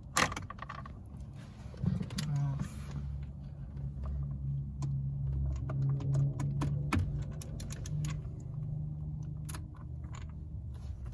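Scattered clicks and knocks of a tool and hands working at the steering wheel's airbag release tab, over a steady low hum.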